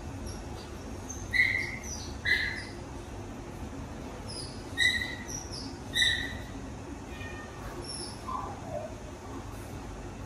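Baby monkey giving short, high squeaks: four of them in two pairs over the first six seconds. Near the end comes a softer call that falls in pitch. A low steady hum runs underneath.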